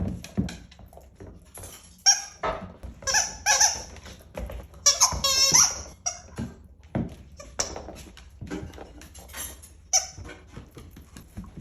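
A dog making a series of short, high-pitched squeaking noises, the longest around two to six seconds in, with scattered clicks and knocks in between.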